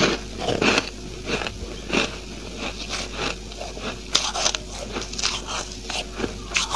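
Freezer frost being bitten and chewed close to a clip-on microphone held at the mouth: irregular crisp crunches, a few each second.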